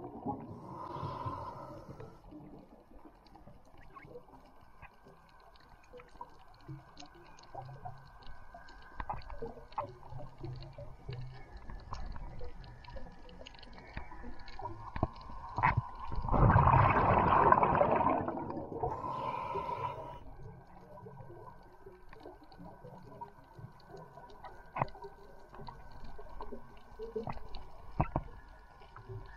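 Underwater sound: a quiet wash full of scattered small clicks and crackles. About halfway through comes a loud rush of bubbling air lasting a second or two, with a shorter one just after.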